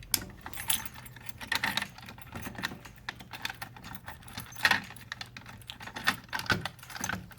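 A bunch of keys jangling as a key is worked in the lock of a fire alarm pull station to reset it. Irregular clicks and rattles run throughout, with the sharpest click about two-thirds of the way through.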